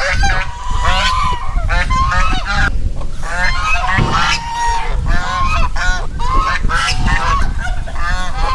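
Several caged geese honking, many short calls following and overlapping one another without pause.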